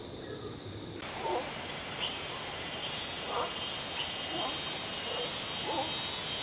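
Tropical forest insects droning steadily at a high pitch, starting abruptly about a second in. Over the drone, short calls recur roughly once a second.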